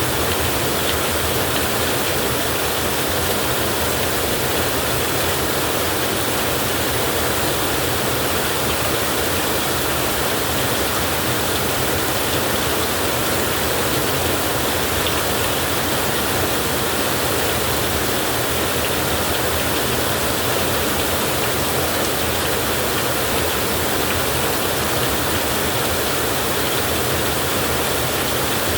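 Steady heavy rain, an even unbroken hiss with no thunder claps.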